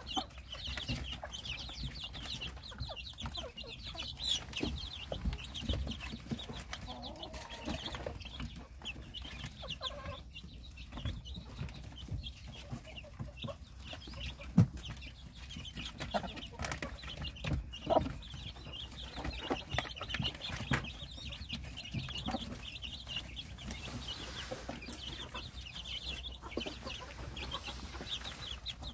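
Korean native chicken chicks peeping in quick high chirps as they peck at napa cabbage leaves and grain feed, with scattered sharp pecking ticks and one louder knock about halfway through. The mother hen clucks now and then.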